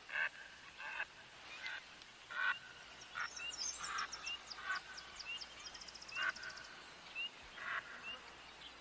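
Faint wild birds calling: short harsh calls repeat about once a second among small chirps, and a rapid high trill of song runs from about three to five seconds in.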